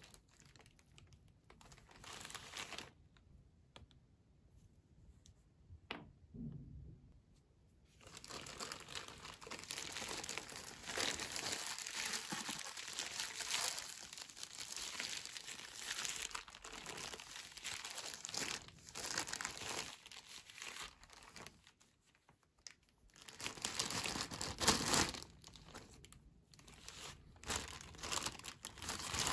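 Thin plastic packaging bags crinkling and tearing as they are handled and ripped open by hand. Only a few faint sounds for the first several seconds, then steady crinkling with brief pauses.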